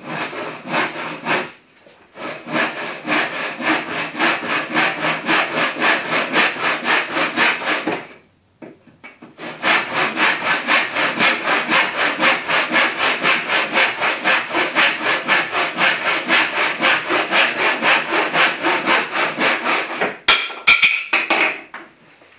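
Hand saw crosscutting a piece of timber in even back-and-forth strokes, about three a second. The sawing pauses briefly about eight seconds in, then resumes, and ends with a few sharp knocks as the cut finishes.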